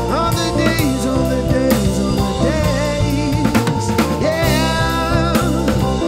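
A live band playing a song: a drum kit keeps a steady beat with snare hits under bass, with a wavering lead melody over it.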